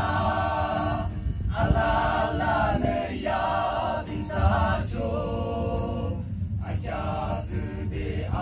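A group of men singing together in chorus, in short phrases with brief breaks between them.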